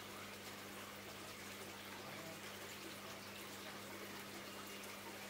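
Aquarium water bubbling and trickling as a faint, steady hiss, over a low, steady hum from the tank's pump.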